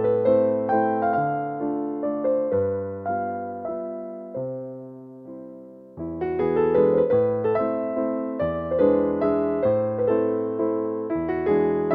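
Background piano music: a gentle melody over chords. It thins and fades away between about four and six seconds in, then comes back fuller with low bass notes.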